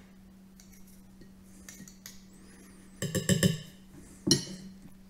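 Table knife clinking against a metal garlic press and a ceramic plate while crushed garlic is scraped off: a quick run of ringing metallic clinks about three seconds in, then one sharp clink just over a second later.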